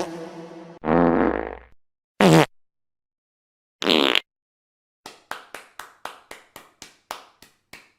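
A string of short sound-effect clips played one after another: a brief decaying tone, a fart sound effect about a second in, two short bursts, then a run of about a dozen quick clicks, roughly three a second, over the last three seconds.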